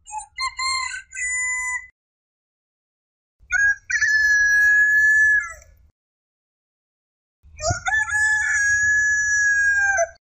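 A rooster crowing three times, with short silences between. The first crow is short and broken. The next two are long, each held on one pitch and dropping away at the end.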